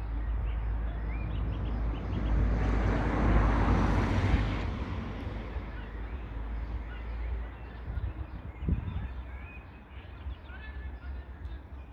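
A car passing along the street: its tyre and engine noise swells up about two seconds in, is loudest around four seconds, and dies away again.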